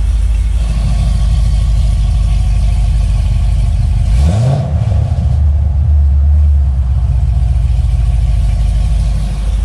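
Corvette C6 V8 idling steadily, heard from inside the cabin, with its exhaust valves switched to the open, louder mode. About four seconds in, the throttle is blipped once, the revs rising briefly and settling back to idle.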